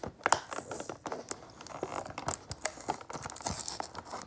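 Toy packaging being handled and torn open by hand: a dense run of crinkling and tearing with sharp clicks.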